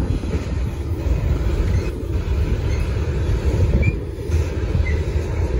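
BNSF freight train rolling past, its wheels and cars making a steady, heavy rumble on the rails.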